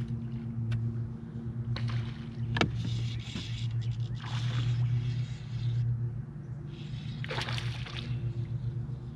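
Bass boat's bow-mounted electric trolling motor humming steadily, with water sloshing against the hull and a sharp click about two and a half seconds in.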